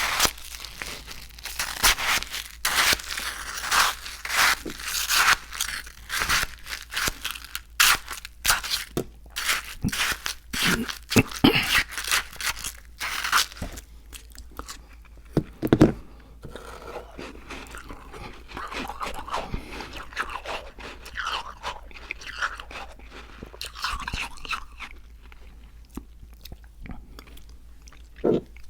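Close-miked biting and chewing of crunchy food. The crunches are loud and dense for roughly the first half, then give way to softer, quieter chewing.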